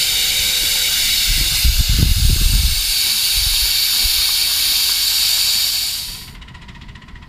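Steam hissing steadily from a 7½-inch-gauge live-steam locomotive, cutting off about six seconds in. A low rumble comes and goes from about one to three seconds in.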